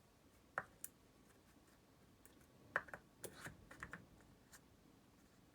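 Scattered light clicks and taps in a quiet room: a pair about half a second in, then a cluster of about half a dozen between about three and four and a half seconds.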